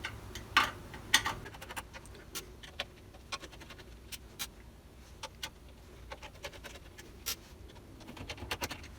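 Screwdriver backing out the mounting screws of a PC power supply: a run of small, irregular clicks and light scrapes, coming faster near the end.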